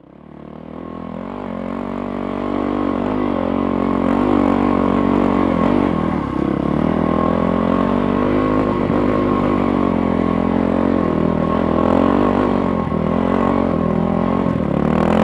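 Dirt bike engine running close by, fading in over the first few seconds, its pitch rising and falling as the throttle opens and closes and the gears change along a trail.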